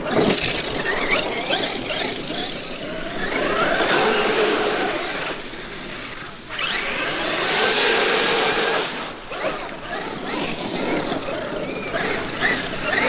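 Traxxas X-Maxx electric RC monster truck running, its brushless motor whining up and down with the throttle over a rush of noise. The sound comes in surges of a few seconds each.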